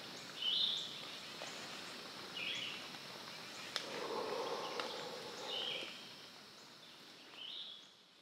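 Woodland ambience with a steady high insect-like hiss and a bird giving a short high call four times, about two seconds apart. Around the middle comes a soft rustle of cloth and rope, with a couple of sharp clicks from the climbing gear being handled. The sound fades out near the end.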